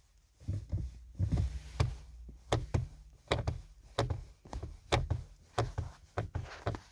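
Car brake and accelerator pedals being pressed and released repeatedly by a foot in a winter boot: a steady run of knocks and clicks, about two to three a second.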